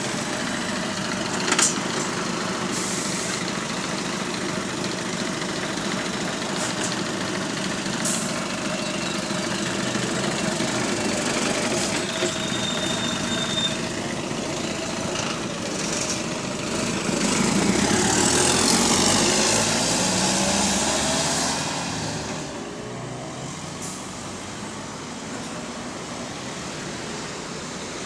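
Diesel engines of Volvo hybrid double-decker buses running by in traffic, one bus passing close about two-thirds of the way through, louder and sweeping in pitch as it goes by; the spotter senses a small exhaust leak on the near bus, its low engine note a tad louder than usual. A sharp knock near the start.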